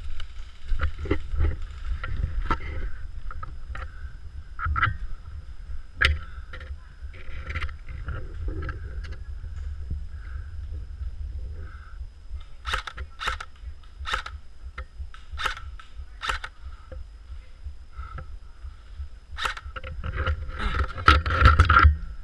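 Muffled low rumble and handling noise from a GoPro Hero 3 in its waterproof case as the wearer moves about. Sharp clicks and cracks come through it, sparse at first, then several in a cluster about halfway through and more near the end.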